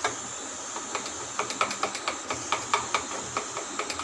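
Gram-flour (besan) batter being beaten by hand in a steel bowl: a quick, uneven run of wet slaps and clicks, about four to five a second, over a steady hiss.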